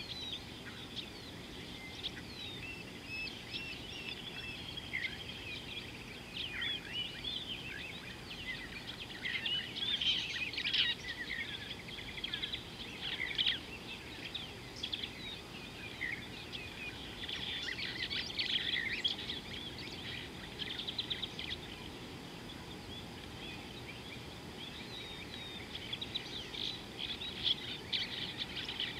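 Several birds calling and singing at once, overlapping chirps, whistled glides and fast trills, over a steady low background hiss.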